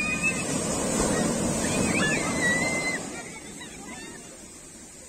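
Sea waves breaking on a sandy beach and the foam washing up the sand, loud for about three seconds and then dropping away to a softer wash.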